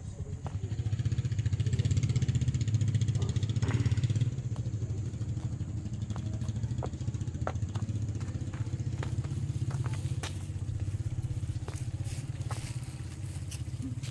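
An engine running steadily at a low idle, growing louder over the first two seconds and then holding, with a few faint clicks over it.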